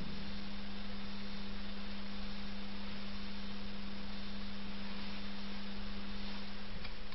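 A steady low electrical hum over an even hiss.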